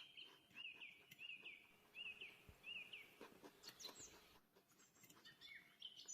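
Faint bird chirping: a quick run of short repeated chirps in the first half, then scattered calls, with a few light clicks mixed in.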